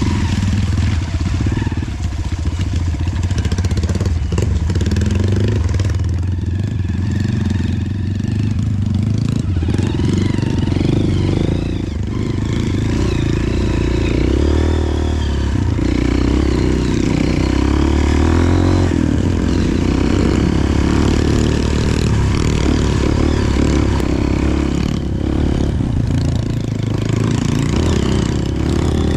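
Single-cylinder trail motorcycle engine running steadily under way at moderate revs, its pitch rising and falling slightly with the throttle.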